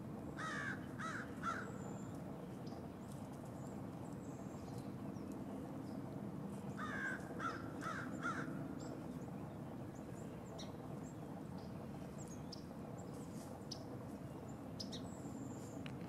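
A crow cawing in two series of three harsh caws, the first about half a second in and the second about seven seconds in, over a steady low background rumble. Faint, short high bird chirps come now and then.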